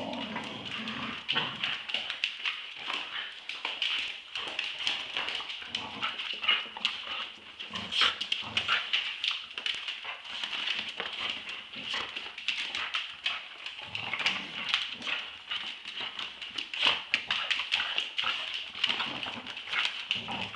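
Two Staffordshire bull terriers play-fighting over a rope toy in a tug of war: continuous dog noises with many irregular clicks and scuffles from the tussle.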